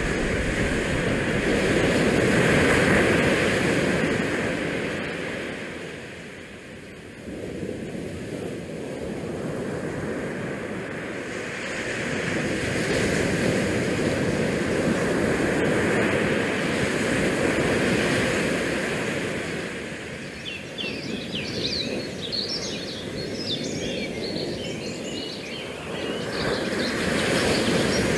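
Outdoor wind noise rushing over the camera microphone in gusts that swell and ease every few seconds. A run of short high chirps comes about two-thirds of the way through.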